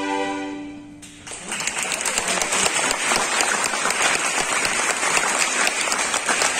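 A young string ensemble's held final chord fades out about a second in. Then audience applause, dense and steady, follows to the end.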